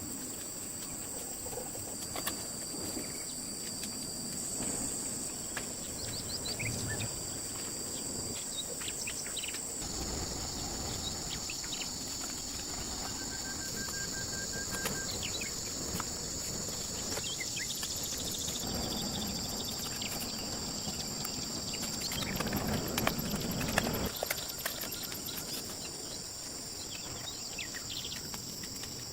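Steady high-pitched insect chorus trilling without pause, with scattered light clicks and a few bird chirps; a louder rough noise rises about three-quarters of the way through.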